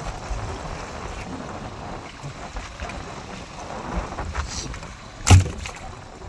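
Steady rush of wind and water around a small fishing boat at sea, with one loud thump on the boat about five seconds in.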